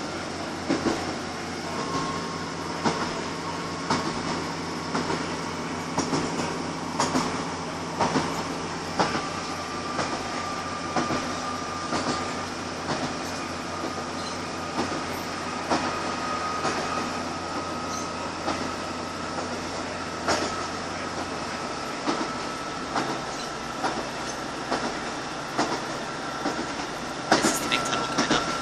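Class 150 Sprinter diesel multiple unit heard from inside the passenger saloon while on the move: a steady diesel engine and running noise, with wheels clacking over rail joints about once a second. The low engine drone drops away about two-thirds of the way through, and a cluster of louder clacks comes near the end.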